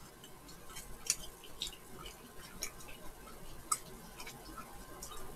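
Faint chewing of fried chicken, with scattered small mouth clicks and smacks.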